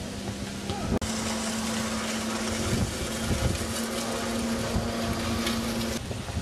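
A steady low motor hum over outdoor background noise, changing abruptly about a second in and again near the end.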